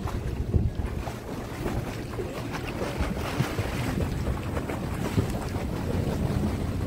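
Water splashing from a swimmer doing front crawl in a pool, over a steady low rumble.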